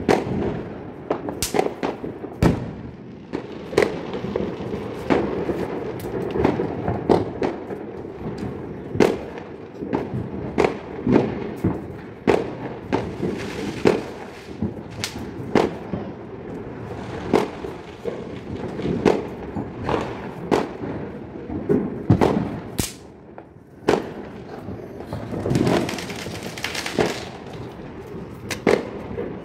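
Firecrackers going off one after another, many sharp bangs at irregular intervals, some louder than others, over a continuous background of crackling. Near the end there is a brief hissing burst.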